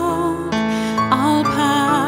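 Music: a melody in long held notes with vibrato over sustained chords and a bass line that shifts note about once a second.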